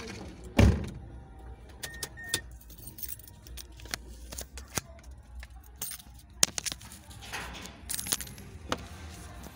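Luggage and keys being handled at a car: a heavy thump about half a second in, then keys jangling and scattered clicks and knocks, with two short high beeps around two seconds in, over a low steady hum.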